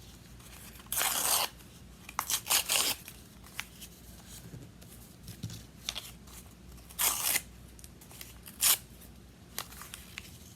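Craft paper being handled: several short, scratchy paper bursts, with light clicks between them.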